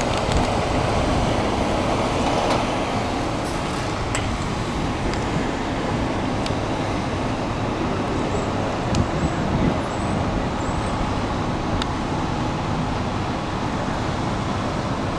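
Steady running noise of motor vehicles and road traffic, with a few faint light clicks.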